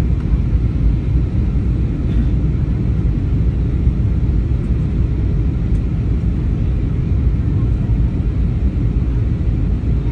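Steady low rumble of an airliner's cabin noise in flight, heard from inside the cabin.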